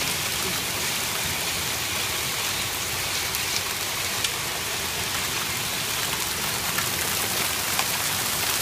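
Heavy rain and hail of a severe thunderstorm pouring down: a steady, dense hiss with a few sharp ticks of hailstones striking.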